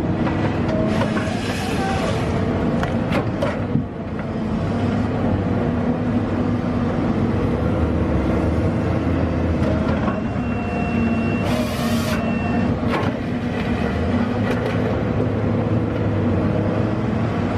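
Excavator fitted with a grapple saw: its diesel engine runs steadily, with short hissing bursts about a second in and again around twelve seconds in.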